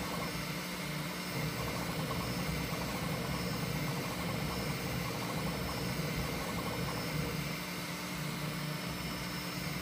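Bambu Lab P1S 3D printer running mid-print on a calibration cube: a steady mechanical whir and hum as its print head moves.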